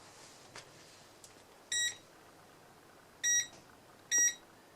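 MILESEEY MC616 multimeter's beeper sounding three short, high electronic beeps, the second and third closer together. Faint clicks are heard between them.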